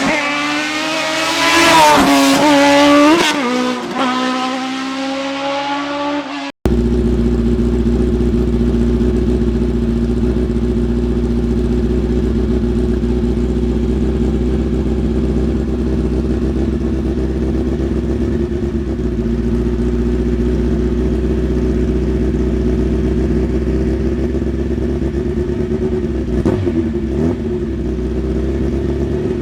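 Hill-climb race car engine revving hard through its gears, the pitch climbing and dropping with each shift. After an abrupt cut, a steady low engine drone runs on, with a brief rise and fall in engine pitch near the end.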